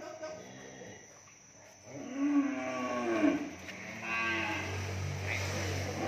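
Cattle mooing: two long, low calls, the first about two seconds in and the second about four seconds in.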